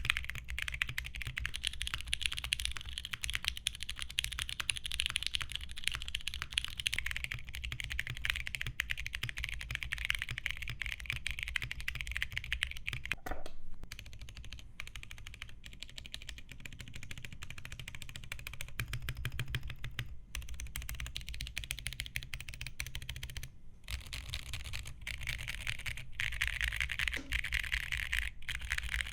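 Typing on a Mode mechanical keyboard fitted with ceramic Cerakey keycaps: a dense, continuous run of keystroke clacks. The typing goes softer for a stretch in the middle, then picks up again.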